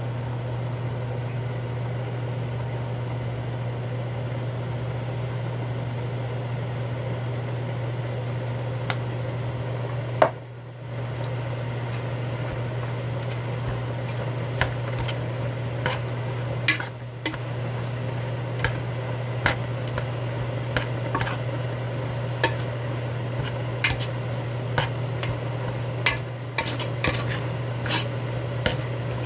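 A metal utensil clicking and knocking against a cooking pot while seaweed is stirred in it. The knocks are sparse at first and come often in the second half, over a steady low hum.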